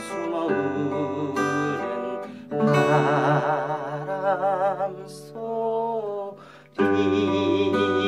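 Acoustic guitar played fingerstyle: a slow melody picked over chords. A few long notes waver with vibrato around the middle, and a new chord is struck near the end.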